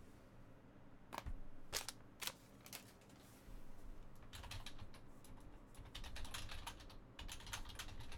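Typing on a computer keyboard: a few scattered keystrokes, then a quicker irregular run of key clicks from about halfway in. Faint.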